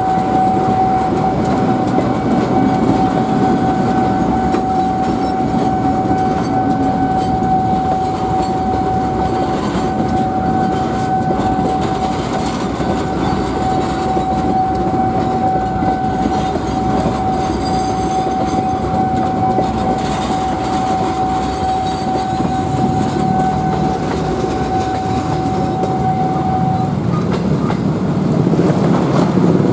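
Passenger train coaches rolling slowly past on departure, a steady rumble with some wheel clatter. A steady high-pitched tone sounds over it and stops a few seconds before the end.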